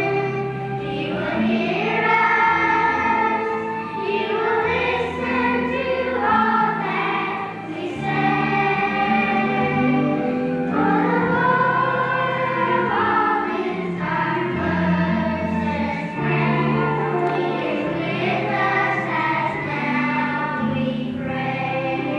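Children's choir singing a Christian song together over an instrumental accompaniment that holds sustained low bass notes.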